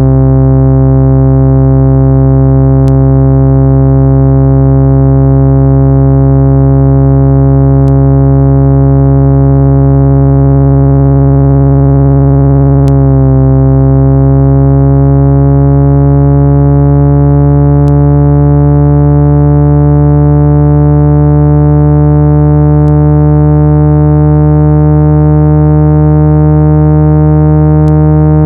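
Loud, steady electronic drone of low stacked tones, a speaker-cleaning tone meant to vibrate a phone speaker's diaphragm hard enough to push out water and dust. About halfway through, the tones shift and glide slightly in pitch, and a faint click comes about every five seconds.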